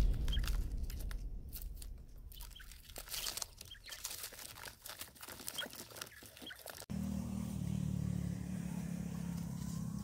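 Quail trapped in a plastic basket shuffling and scratching, with short clicks and a few faint high peeps. A sudden cut about seven seconds in brings a steady low hum.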